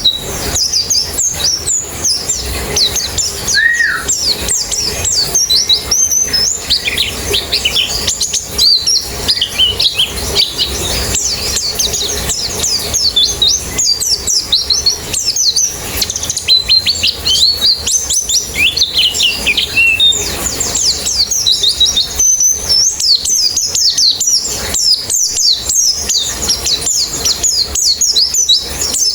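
A colony of white-eyes (pleci) singing together: many rapid, high chirps and twittering phrases overlapping without a break, in the fast 'ngalas' song style.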